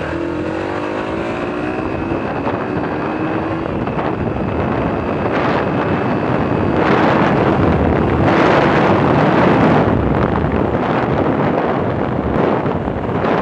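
Yamaha YBR125's single-cylinder four-stroke engine pulling on the road, its note rising as the bike accelerates over the first few seconds. Wind buffets the microphone throughout and is heaviest about seven to ten seconds in.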